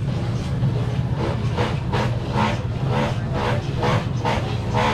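A motor vehicle engine running with a steady low rumble. From about a second and a half in, a pitched sound repeats over it about twice a second.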